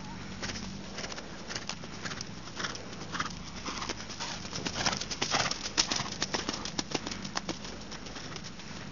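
Horse cantering on a sand arena: a run of hoofbeats that gets louder and closer, loudest about five to six seconds in, then fades.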